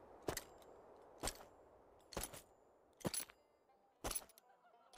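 Slow footsteps, about one a second, each step a sharp knock followed by a short, faint metallic jingle.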